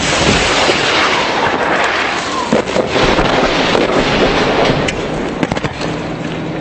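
Rapid small-arms gunfire: many sharp shots overlapping into a continuous crackle, densest around the middle.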